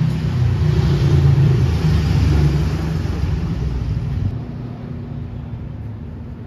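A motor vehicle's engine running with a low, steady rumble on the street. It is loud for about four seconds, then drops away fairly suddenly.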